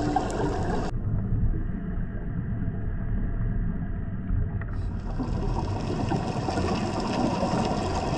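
Underwater ambient noise picked up by a diving camera in its housing: a low, steady wash of water noise that changes character abruptly about one second in and again about five seconds in.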